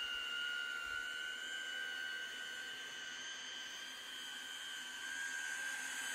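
Electric motors of a VTOL RC model airplane in flight, a steady high whine over a hiss. It fades a little in the middle and grows louder again near the end.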